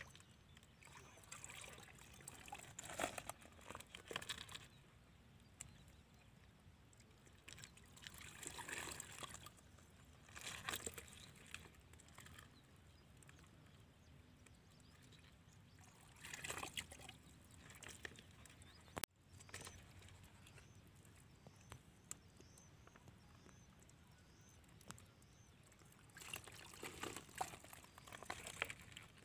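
Hands splashing and sloshing in muddy water in a small hole, groping for fish, in about four short bursts a few seconds apart with quiet stretches between.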